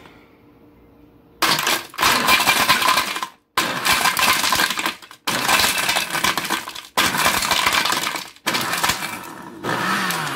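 Hamilton Beach smoothie blender running on its low setting, its stainless steel blades chipping and rattling ice cubes against the plastic jar. The motor runs in about six bursts of one to two seconds with short breaks between them, starting about a second and a half in. The ice is broken into chunks rather than crushed fine.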